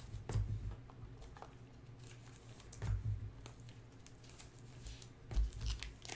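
Trading cards and silver foil pack wrappers handled on a tabletop: light crinkling, sliding and clicking, with three soft thumps on the table, near the start, in the middle and near the end.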